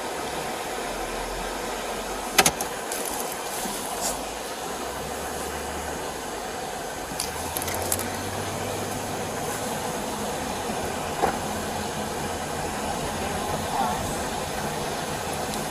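Steady road and engine noise inside a moving patrol car, with a sharp click about two seconds in and a few fainter clicks and knocks later.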